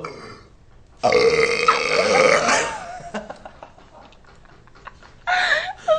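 A teenage boy's long, loud burp. It starts about a second in and lasts about a second and a half, its pitch wavering. Near the end comes a short burst of voice.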